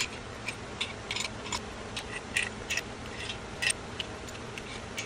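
A string of light, irregular metallic clicks and taps: a socket and extension being handled and fitted onto the main cap bolts of an LS engine block.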